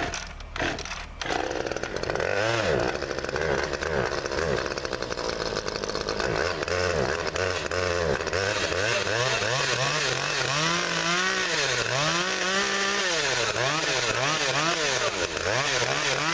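Husqvarna 338XPT two-stroke top-handle chainsaw (39 cc) cold-started at about 7 °F: a few quick pull-cord strokes, then it catches about a second in and runs, revved up and down over and over. A clean cold start from dead cold on choke.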